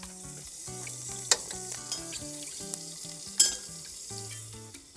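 Orange sauce sizzling in a pan on a two-burner camping gas stove as it is stirred, with two sharp knocks of a utensil against the pan.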